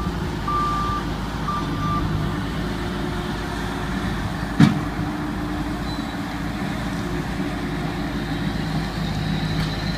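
Heavy construction machinery running on a building site: a steady engine drone, a back-up alarm beeping about once a second that stops after about two seconds, and one sharp loud bang about four and a half seconds in.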